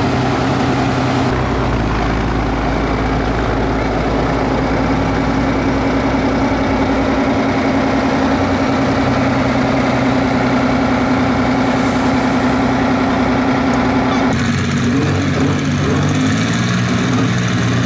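Big open-exhausted engine of a modified red pulling tractor running steadily. About three-quarters of the way in it changes abruptly to engine noise that shifts in pitch under load, as the tractor pulls with black smoke pouring from its stacks.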